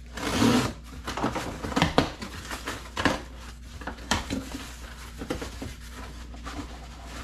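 A cardboard shipping box being opened and its packaging handled: a loud rustling burst at the start, then scattered knocks and rustles of cardboard.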